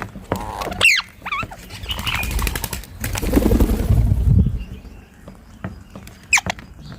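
Rose-ringed parakeets giving shrill calls that fall sharply in pitch, a quick run of them about a second in and one more about six seconds in, among scattered clicks. A louder low rumbling noise runs through the middle.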